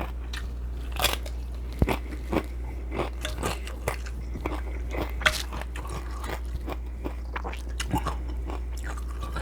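Close-miked eating: repeated crisp bites and crunching with chewing, most likely tostada or saltine crackers, over a steady low hum.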